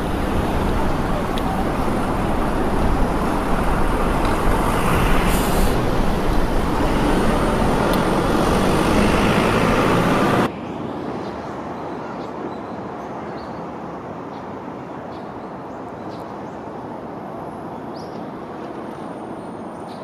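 Toden Arakawa Line tram running, heard from on board: a steady motor hum and wheel noise, with a brief hiss about five seconds in. About halfway through it cuts off abruptly to a quiet outdoor city background with a few faint clicks.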